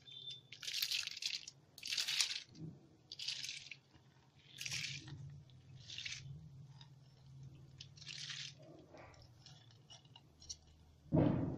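Soaked urad dal being tipped from a steel bowl into water in a kadhai: a series of short wet, gritty pours and splashes about a second apart, over a low steady hum. A louder thump comes near the end.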